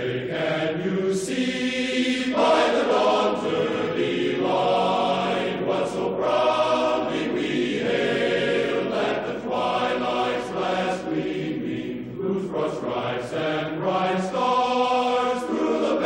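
Choral music: voices holding long, chant-like notes that change pitch every couple of seconds.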